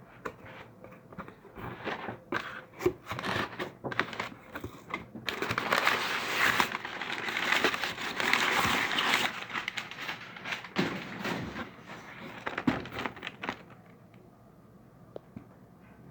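Product packaging handled by hand: scattered taps and clicks, then a long spell of dense rustling and crinkling from about five seconds in, dying away about two seconds before the end.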